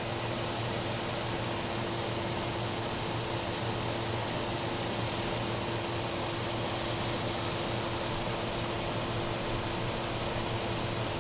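1978–79 GE Sahara 14-pint dehumidifier running steadily: its fan blowing air over the coils, with the steady hum of its Aspera compressor, a copy of the Tecumseh AE, which is quiet. The compressor is freshly started and its condenser is warming up.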